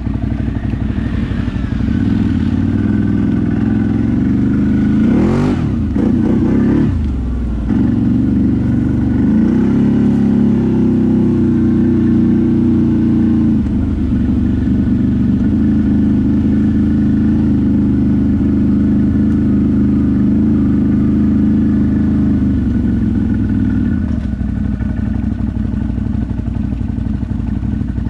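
ATV engine running under throttle. The revs rise and fall sharply a few seconds in, are held high for a long stretch, then drop to lower revs about three-quarters of the way through.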